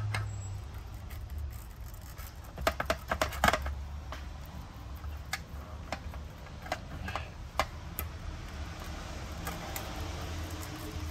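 Metal clicks and clinks from piston pliers being fitted and worked against an ENDLESS racing brake caliper in a steel parts tray, with a quick cluster of knocks about three seconds in and single clicks after. The pliers are trying to grip pistons that are stiff in their bores. A low steady hum runs underneath.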